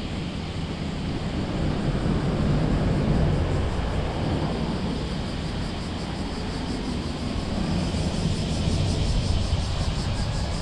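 A car driving on a road: a steady rumble of tyre and engine noise that swells slightly a few seconds in and again near the end.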